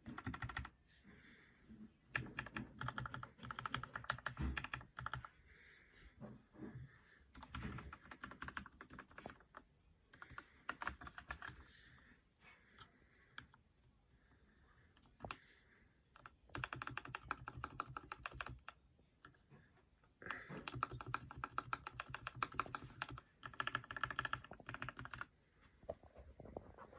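Mechanical keyboard with linear Gateron Black Ink v2 switches being typed on, rapid key clacks in bursts of several seconds with short pauses between.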